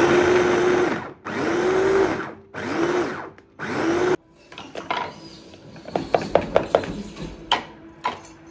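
Electric kitchen chopper run in four short pulses, chopping onions and potatoes. Each time the motor spins up with a rising whine and winds down. A quick run of sharp clicks and taps follows near the end.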